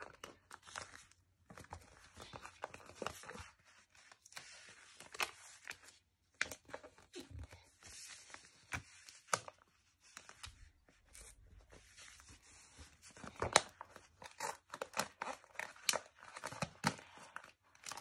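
Stickers being peeled off a paper backing sheet and the glossy sticker sheets rustling and crinkling as they are handled, in uneven runs of short crackles and rustles.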